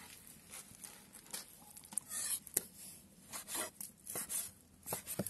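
Kitchen knife slicing raw pork on a wooden cutting board: soft cutting strokes and light taps of the blade on the board at irregular intervals.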